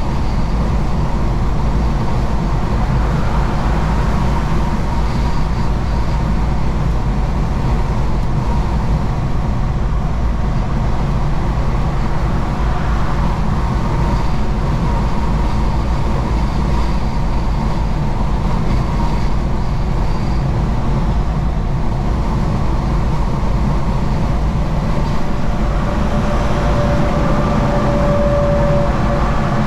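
Steady engine and road noise heard from inside a truck cab while driving, mostly a low rumble, with a thin steady tone rising over it for a few seconds near the end.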